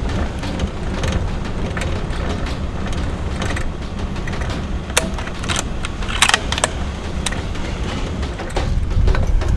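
Truck driving along a rough dirt track, heard from its open back: the engine and tyres make a steady low rumble, and loose metal rattles and clanks, most sharply around the middle.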